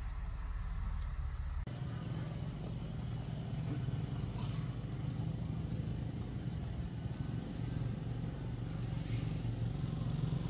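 Steady low outdoor rumble with a few faint clicks; its character changes abruptly about two seconds in.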